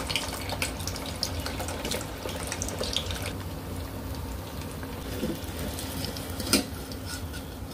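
Frozen samosas deep-frying in oil: a steady sizzle full of fine crackles, with one sharper click about six and a half seconds in.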